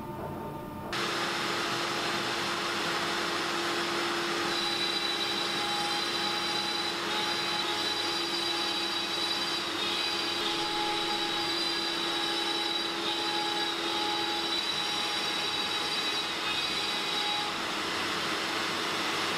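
A CNC router's spindle cutting into a solid-wood board, with its dust extraction running. It comes in abruptly about a second in as a steady whirring noise with a high, slightly wavering whine.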